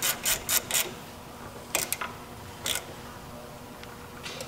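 Wrench tightening a brake line fitting: a quick run of about five clicks in the first second, then two close clicks near the middle and one more a little later.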